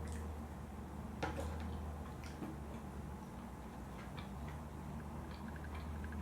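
Eating sounds: scattered faint wet clicks and smacks of chewing close to the microphone, with one sharper click just after a second in, over a steady low hum.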